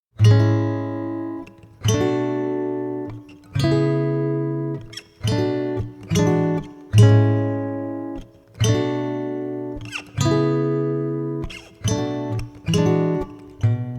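Slow acoustic guitar music: chords strummed one at a time and left to ring out, roughly one every one and a half seconds, starting suddenly just after the beginning.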